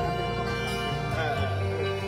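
Live band music: bass guitar and strummed guitars over drums, playing an instrumental passage with held notes.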